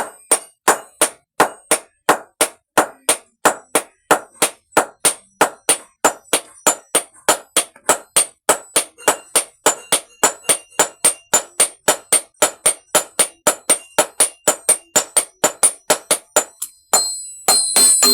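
Hand hammer forging a steel tapping-knife blank on an anvil, striking in a steady rhythm of about three blows a second, each blow with a short metallic ring. The hammering stops near the end and a dense jangling, ringing noise takes over.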